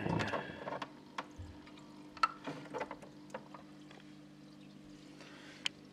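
Water splashing as a clump of aquarium moss is dropped back into the tank by hand, followed by scattered drips and small ticks. A steady low hum runs underneath.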